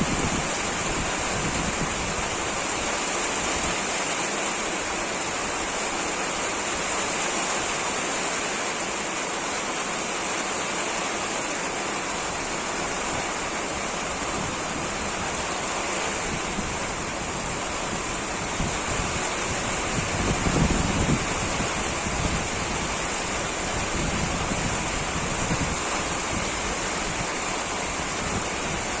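Heavy rain falling steadily in wind, an even rushing hiss. About two-thirds of the way through, a gust of wind rumbles on the microphone.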